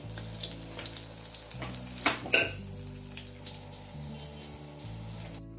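Hot oil sizzling and crackling as fish pakoras fry in a kadai, with two sharper clicks a little over two seconds in.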